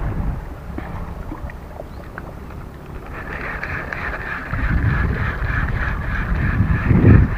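Wind buffeting the microphone, a low rumble that swells in gusts and is strongest near the end. A steady higher whirring joins about three seconds in.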